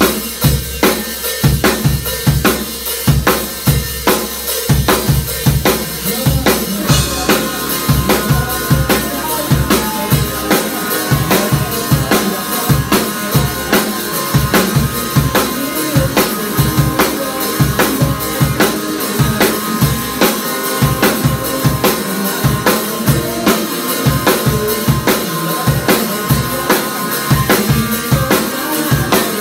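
Acoustic drum kit played in a driving rock groove: kick drum and snare backbeat with cymbals over it, the kick getting busier about ten seconds in.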